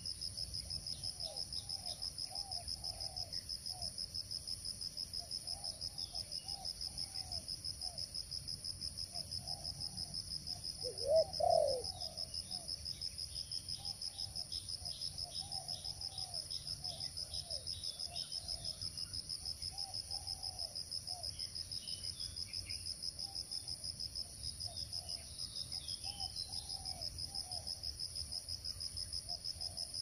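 Steady, evenly pulsing high-pitched insect chorus, with faint low bird calls repeating underneath. About eleven seconds in, a louder short low call in two parts stands out.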